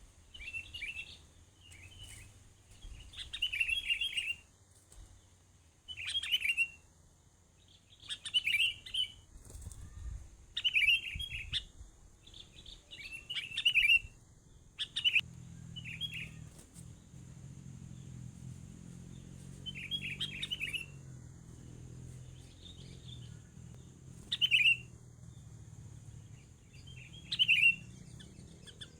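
Bird chirping: short, sharp call phrases repeated every second or two, with brief pauses between them.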